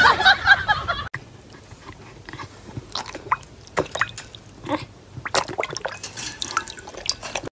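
A loud pitched sound for about the first second, then water splashing and dripping in a plastic bowl in irregular small splashes as a dog pokes its muzzle in and laps at a floating toy.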